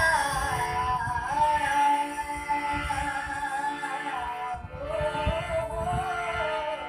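A girl singing a devotional bhajan to her own harmonium accompaniment; the harmonium holds steady notes beneath her sliding, ornamented vocal melody.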